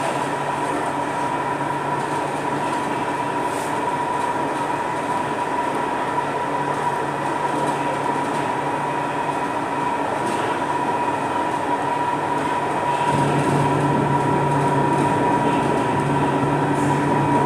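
Chennai Metro train running through an underground tunnel, heard from inside the carriage: a steady rolling rumble with a steady high whine. About thirteen seconds in it grows louder and a lower hum joins.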